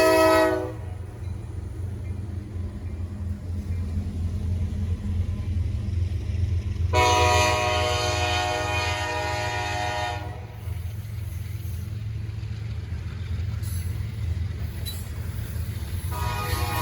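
Horn on the lead SD70MACe diesel locomotive of a freight train, sounding in long blasts. One blast ends just under a second in, another lasts about three seconds from about seven seconds in, and a third starts near the end. The steady low rumble of the locomotives runs underneath.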